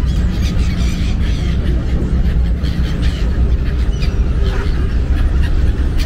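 A ferry's engine and wind give a steady low rumble, with many short high-pitched calls scattered over it.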